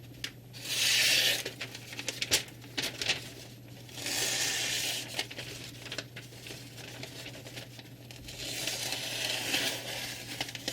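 Abrasive stone of a TooHR 3 guided-angle knife sharpener being drawn along a knife edge. It makes three slow scraping strokes, the last the longest, with light clicks between them.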